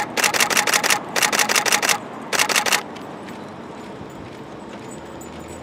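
Still-camera shutters firing in rapid bursts, three runs of fast clicks in the first three seconds, then only faint outdoor background.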